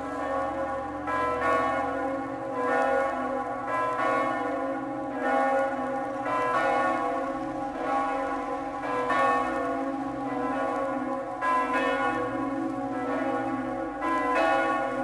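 Church bells ringing: several bells struck in turn, a new strike roughly every second, each ringing on over the others.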